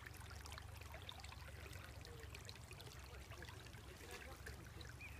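Faint, steady trickle and splash of muddy rainwater runoff running in a shallow stream over the ground after a heavy downpour.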